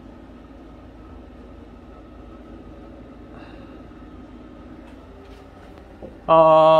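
Steady low room hum of ventilation, then about six seconds in a man sings one loud, held note.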